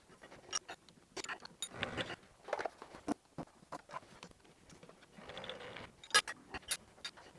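Small metal workpieces and hand tools being handled and set up: scattered irregular clicks, taps and clinks, with a soft rustle about five seconds in and a quick run of sharper clicks near the end. No machine is running.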